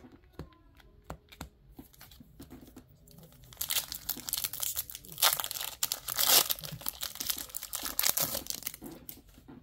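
Foil Pokémon booster pack wrapper torn open by hand, crinkling loudly. A few light handling clicks come first as the pack is picked up, and the tearing starts a few seconds in.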